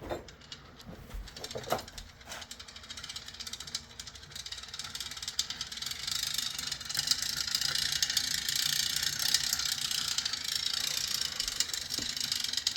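BMX wheel spinning on its hub, its freewheel ratchet clicking rapidly and steadily. The clicking gets louder about halfway through.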